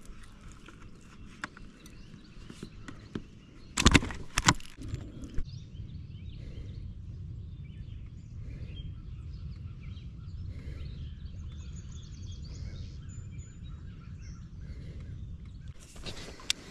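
Handling knocks on a kayak, two sharp ones close together about four seconds in and another near the end, with a steady low rumble after the first pair and faint bird chirps.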